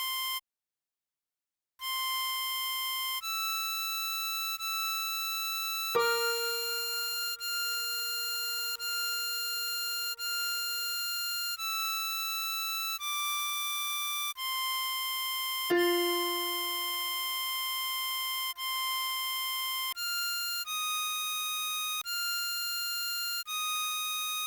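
Diatonic harmonica playing a slow melody one held note at a time, each note about a second long with brief gaps between. Twice, about 6 and 16 seconds in, a lower note starts sharply under the melody and fades away over a few seconds.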